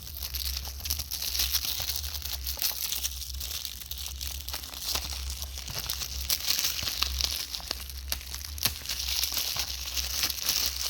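Plastic shrink-wrap being peeled and torn off a 4K Ultra HD Blu-ray case, crinkling and crackling continuously.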